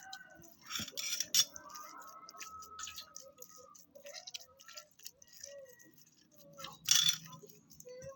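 Irregular light clicks and clatter of small objects being handled, with a short hissing rush about a second in and another near the end.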